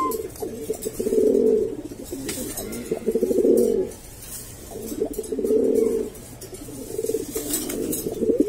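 Domestic pigeon cooing in courtship: about four low, pulsing coo phrases, each around a second long and spaced roughly two seconds apart, as a puffed-up male circles a newly introduced hen.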